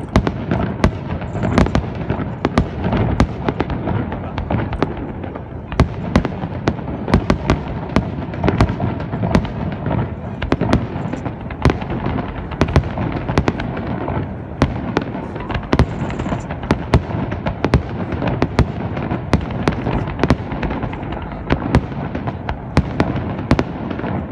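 Fireworks display: aerial shells bursting in quick succession, several sharp cracks and bangs a second over a continuous low rumble.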